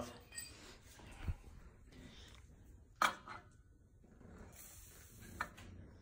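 Scattered light clinks and knocks of metal fittings being handled, three separate strikes with the sharpest about halfway through, and a faint high hiss for about a second near the end.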